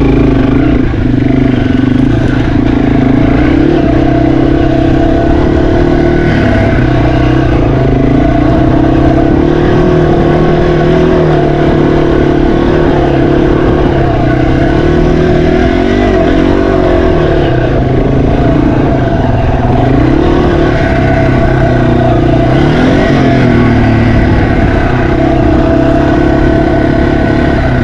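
Yamaha TW200's single-cylinder four-stroke engine running on the trail, its revs rising and falling several times through the middle as the rider works the throttle.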